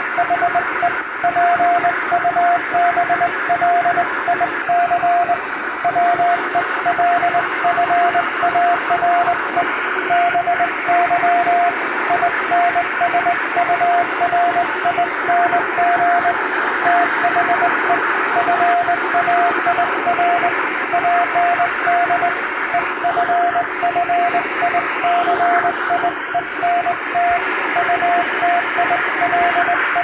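Morse code sent by hand on a straight telegraph key: a single tone of about 700 Hz keyed on and off in dots and dashes at an even hand-sent rhythm, over a steady hiss.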